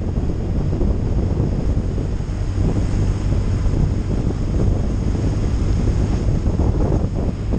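Wind buffeting the microphone of a camera on a moving touring motorcycle, with the motorcycle's engine running under it, steady throughout.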